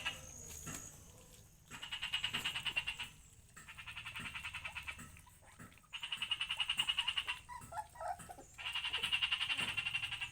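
Frog calling: a series of rapid pulsed trills, each about a second and a half long, repeated five times with short pauses between.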